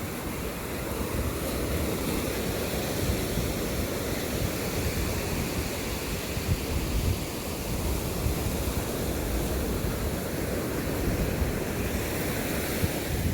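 Ocean surf washing steadily onto the beach, with wind buffeting the microphone in uneven low rumbles.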